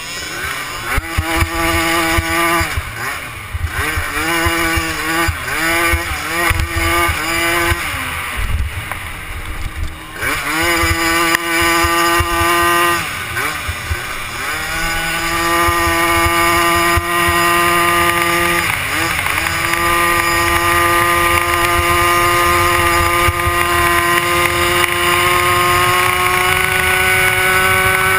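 Youth 90 cc quad's small engine revving up and falling back again and again through the turns, easing off briefly around eight seconds in. From about fifteen seconds in it holds high revs, its pitch slowly climbing, with wind buffeting the helmet camera.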